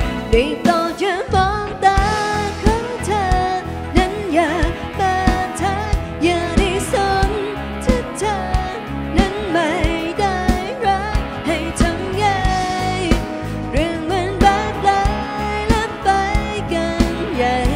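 Live pop band playing: a woman singing lead over electric guitars, bass guitar, keyboard and a drum kit keeping a steady beat.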